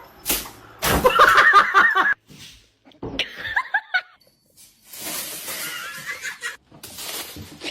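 A person laughing in several short bursts, broken up by other brief sounds.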